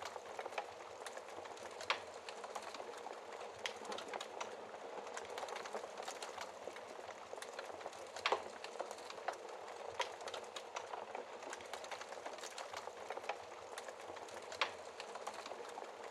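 Wood fire crackling in a fireplace: a steady hiss of small crackles with a few sharper pops, the loudest about halfway through.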